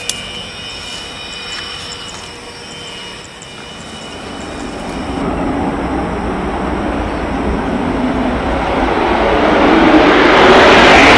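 Twin-engine Sukhoi Flanker fighter jet's engines on the takeoff run: a thin distant whine at first, then a broad rushing jet noise that grows steadily louder from about five seconds in as the jet accelerates and lifts off.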